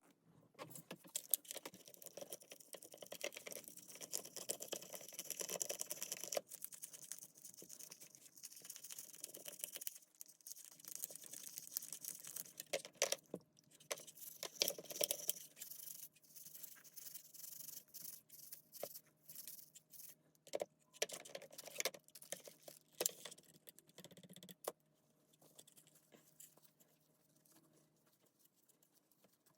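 Irregular clicks, clinks and short scrapes of small hard parts and tools being handled while a Makita cordless drill is worked on to replace its worn chuck bearing. A faint steady hum runs underneath through the middle and later part.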